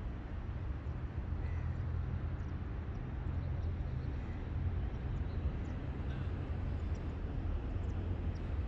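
Outdoor background noise: a steady low rumble with a few faint short chirps over it.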